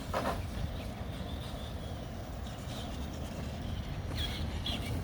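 CEN Racing 1/10-scale electric monster truck, running on a 3S LiPo, driving at a distance, heard as a steady low rumble, with a couple of short bird chirps about four seconds in.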